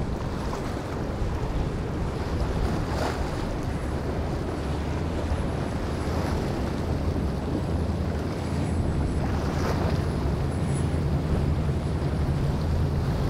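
Large motor yacht running at planing speed: a steady low engine drone mixed with the rushing spray of its bow wave and wake, with wind on the microphone. Two louder splashes come about three and ten seconds in.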